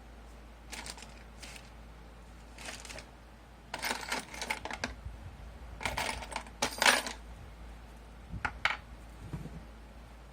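Small metal tool parts clinking and rattling in irregular bursts as they are handled, picked out and fitted together: a screwdriver bit and an extension adapter.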